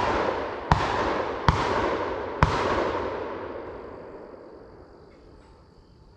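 Four shotgun shots in quick succession, a little under a second apart, fired from a Stoeger M3000 12-gauge semi-automatic shooting buckshot. Each blast rolls off in a long echo through the woods, and the echo fades away over about three seconds after the last shot.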